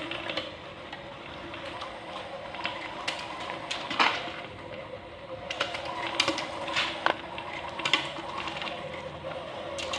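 Small electric motor whirring steadily, with scattered plastic clicks and knocks, the loudest about four seconds in.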